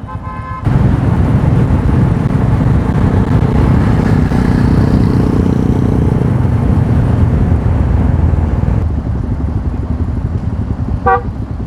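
Motorcycle on the move: the Royal Enfield Meteor 350's single-cylinder engine runs under heavy wind rush on the helmet-mounted camera mic. The rush comes in loud about a second in and eases off after about nine seconds.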